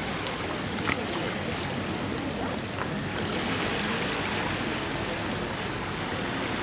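Steady outdoor waterfront ambience: an even rushing noise, like wind or water, with a few faint clicks about a second in.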